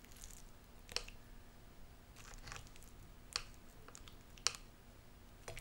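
Plastic knife and fork cutting through a fried egg on a plate: soft squishes and scrapes, with three sharp clicks of the utensils against the plate.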